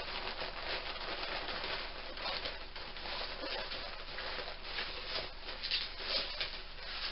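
Stuffing paper crinkling and rustling as it is pulled out of a bag to reach an item wrapped inside, a dense run of small irregular crackles.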